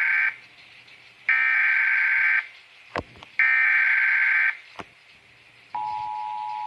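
Emergency Alert System SAME header: three bursts of buzzing data tones, each about a second long with short pauses between them and a couple of faint clicks in the gaps. Near the end a steady two-tone attention signal begins.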